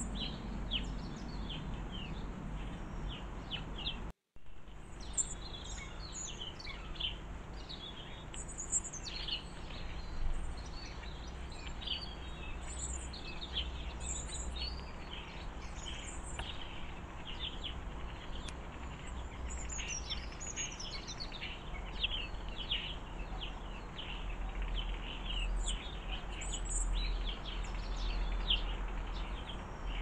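Small garden songbirds chirping and twittering, many short high calls one after another, over a low steady rumble. The sound cuts out completely for a moment about four seconds in.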